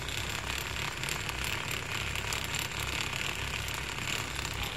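Steady mechanical rattling over a low hum from a hanging-basket cable ride running along its overhead cable.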